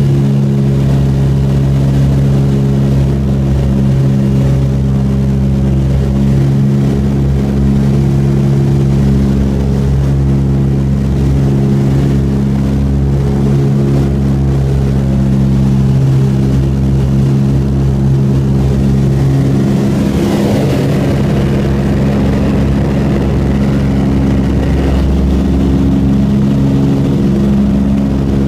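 Douglas DC-3's twin radial piston engines droning steadily at climb power after takeoff, heard inside the cockpit. The engine note shifts briefly about twenty seconds in, with a short rise in rushing air.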